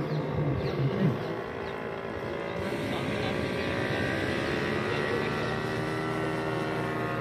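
Paramotor engine and propeller droning steadily overhead as the powered paraglider flies past, growing a little louder about two and a half seconds in.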